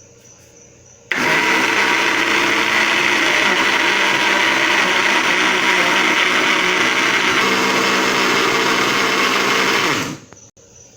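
Kitchen blender switched on about a second in, running steadily at one speed as it mixes eggs and margarine for a cake batter, then switched off near the end, its motor winding down.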